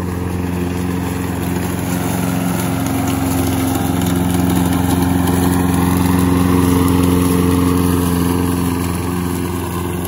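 Walk-behind gasoline lawn mower running steadily as it is pushed across the grass, cutting. The engine gets a little louder around the middle and eases off near the end.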